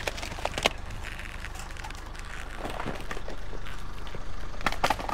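A few sharp clicks and knocks of computer parts being handled and sorted, over a low steady rumble.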